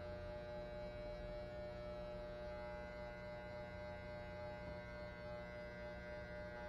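Electric hair clippers buzzing steadily as they cut a skin fade.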